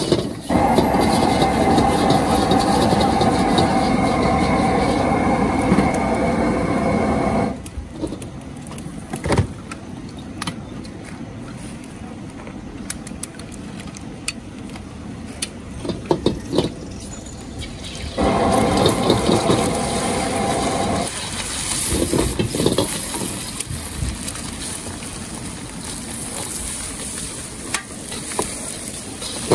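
Gas wok burner of a street stir-fry stall running at full roar in two stretches. Each stretch cuts off suddenly, and between them a quieter steady rush runs on. Scattered clanks and scrapes of a metal spatula against the wok come through.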